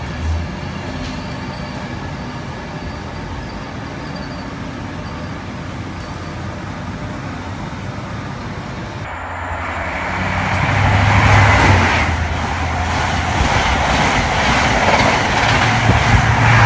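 Express passenger train running past along the platform: steady rolling noise of the coaches on the rails. About nine seconds in it becomes louder and closer, with a low hum under the wheel noise.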